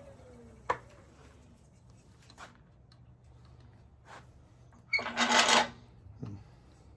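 Wood lathe spinning down, its falling hum dying away in the first second. Then come a sharp click, a few light knocks of handling, and a loud scraping rub lasting under a second, about five seconds in.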